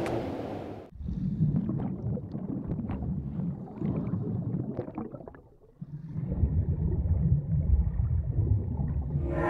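Underwater sound effect: a low, muffled rumble with faint gurgling. It drops away briefly about five seconds in, then comes back fuller.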